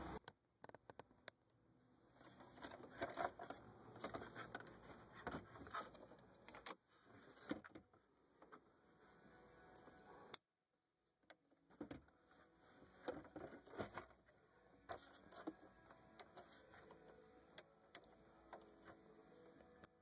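Near silence with faint, scattered light clicks and rustling from hands handling wiring connectors and plastic console trim.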